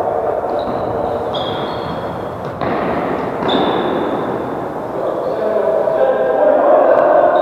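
Football match sounds: indistinct players' voices with a sharp kick or thud of the ball about two and a half seconds in.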